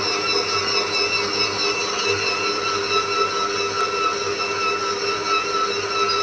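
Electric stand mixer's motor running steadily at a constant pitch as its dough hook kneads atta dough in a stainless-steel bowl.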